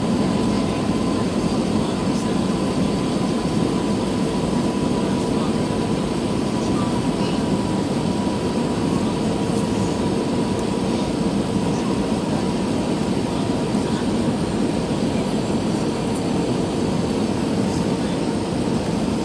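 Steady cabin noise of an Airbus A320-214 airliner: an even roar of engines and airflow heard from inside the cabin, with a faint steady hum over it.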